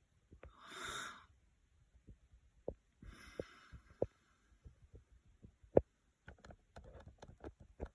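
Irregular light taps and clicks, as of fingers working a diagnostic scan tool, with two short breaths about one and three seconds in.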